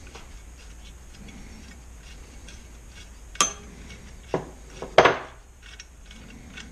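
Hand-tool work on an engine crankcase: faint light clicking as a wrench turns out the bolt holding the oil pickup, then three sharp metal clinks as the wrench and parts are handled and set down on the bench, the loudest about five seconds in.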